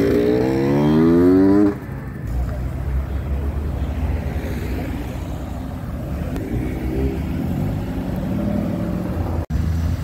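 Yamaha motorcycle accelerating away, its engine note rising steadily for nearly two seconds and then cutting off suddenly. A Ford Mustang GT's V8 follows with a low, steady rumble as it rolls slowly past.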